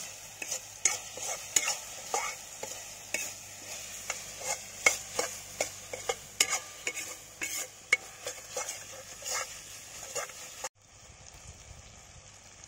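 Steel ladle scraping and knocking against an iron kadai, stirring an onion-tomato masala that sizzles as it fries. The scraping comes in quick irregular strokes and stops abruptly about eleven seconds in, leaving only a fainter sizzle.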